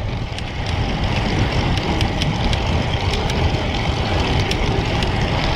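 Wind rushing over the camera microphone with tyre and road noise from a road bike riding on pavement: a steady low rumble, with faint light ticks scattered through it.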